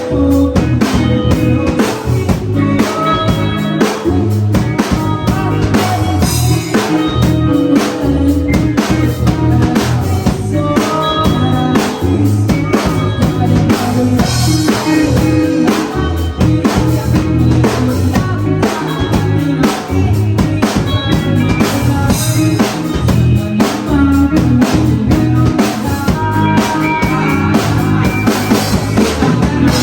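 Band playing rock music: a drum kit keeping a steady beat with bass drum and rimshots, under bass and guitar.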